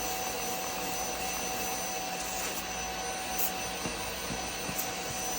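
Bissell Little Green Max Pet portable carpet and upholstery cleaner running: its suction motor makes a steady whine over a rushing hiss while the scrub-brush tool works a wet stain on the mattress.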